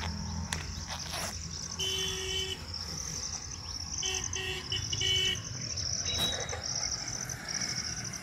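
Insects chirping in a steady, pulsing high trill. A horn-like pitched tone sounds once for about a second, then as a few short toots about halfway through.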